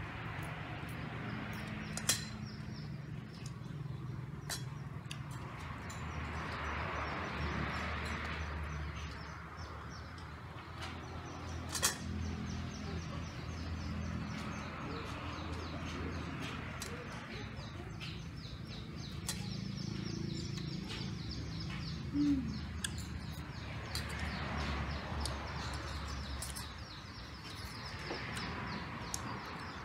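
Eating sounds: chewing, and a fork and spoon clinking and scraping on a metal plate, with sharp clicks about two seconds in and again near twelve seconds. Steady chirping runs in the background.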